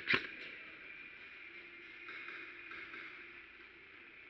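Two sharp snaps of airsoft gun fire right at the start, about a fifth of a second apart, then a steady high hiss.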